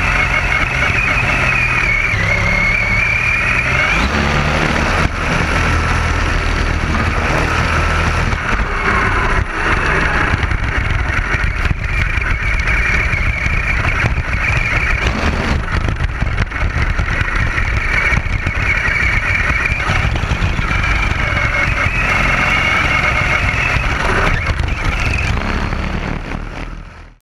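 Redcat RC buggy's motor whining at speed, its pitch rising and falling with the throttle, over a steady low rumble of the chassis and sand, heard from a camera mounted on the car. The sound fades out near the end.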